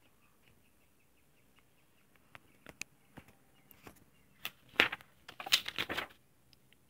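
Glossy comic book pages being handled and turned. There are a few scattered soft clicks, then a burst of loud paper crackling about four and a half to six seconds in.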